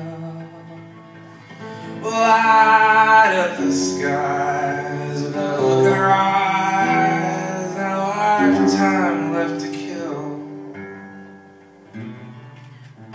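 A solo male singer accompanying himself on acoustic guitar, singing long held notes that waver in pitch.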